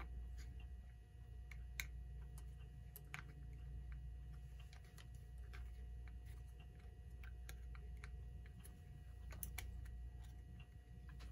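Scattered faint clicks and taps of a screwdriver prying the friction-fit hour hand off a Telechron clock's shaft, irregular rather than rhythmic, over a low steady hum.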